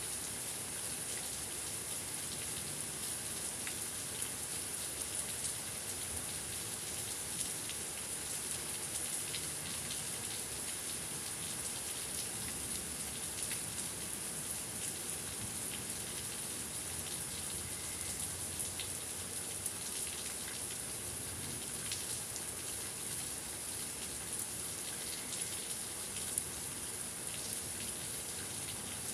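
Steady thunderstorm rain, an even hiss of rainfall with many separate drops ticking through it.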